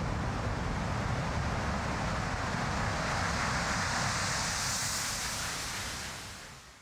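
A steady rushing noise, with no tune or voice in it. Its high hiss brightens about five seconds in, then the whole sound fades out near the end.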